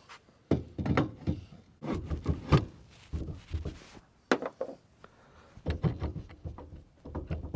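8 mm Allen key turning the set screws on a hitch vise's shank: several short bursts of metal clicking and scraping as the screws are tightened to take up the play in the hitch receiver.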